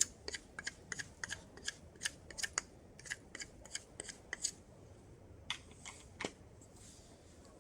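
Hand brace and auger bit boring into wood: a steady run of sharp clicks, about three a second, that thins to two last clicks and stops after about six seconds.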